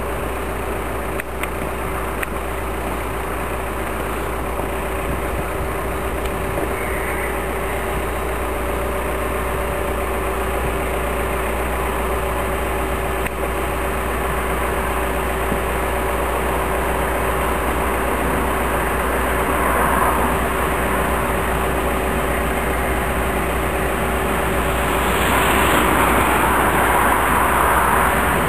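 Two Class 37 diesel locomotives approaching, their English Electric V12 engines running as a steady drone that slowly grows louder, with a stronger rush near the end.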